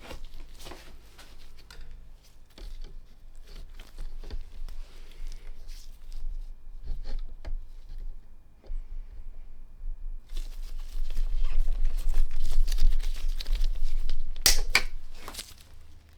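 Close handling noise: irregular rustling, crinkling and clicks over a low rumble, getting busier and louder about ten seconds in, with the sharpest crackle near the end.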